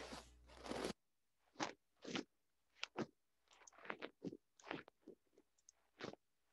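Faint crackling and rustling: a burst of noise that stops about a second in, then a string of about a dozen short, separate crunchy noises.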